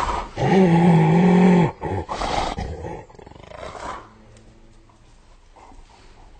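Spotted hyena calling: one long, low, steady-pitched call, then two shorter calls, fading out about four seconds in.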